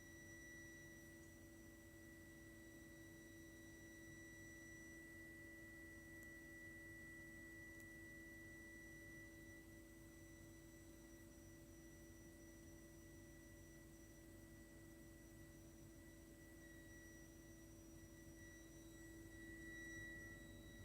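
Faint, continuous high-pitched whine held at one steady pitch, with a lower steady hum beneath it, from a heating system's heat interface unit (HIU) and pipework. This is an abnormal shrieking plumbing noise, a fault in the heating system.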